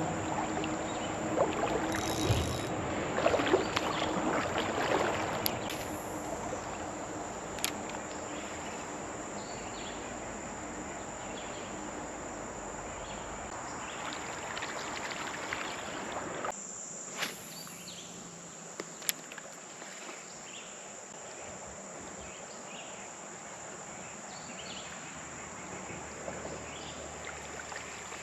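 Creek-side ambience: a steady high-pitched insect drone throughout, with scattered clicks, rustling and water noise in roughly the first half that turn quieter after about 16 seconds.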